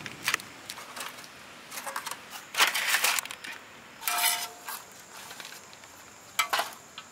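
Steel ladle scraping cooked scrambled egg and seafood off a large flat metal pan and dropping it into aluminium foil trays: a run of scrapes and rustles, with two short metallic rings, about four seconds in and near the end.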